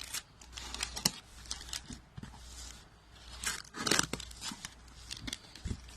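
A shipping box being opened by hand: irregular tearing and rustling of the packaging, with scattered sharp clicks and scrapes. The loudest moments come about a second in and again around four seconds in.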